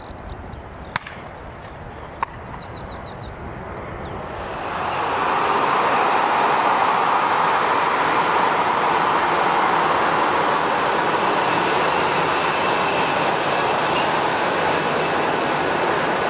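Jet airliner engines swelling to a loud, steady rushing noise about four and a half seconds in, and holding to the end. Before it, quieter bird chirps and two sharp clicks.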